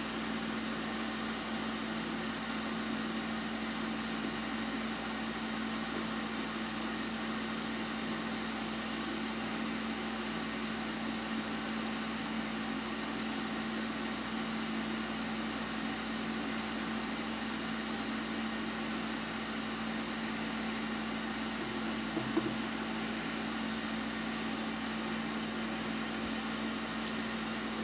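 Steady machine hum with one steady low tone running through it, like a fan or appliance running; one faint tap about three-quarters of the way through.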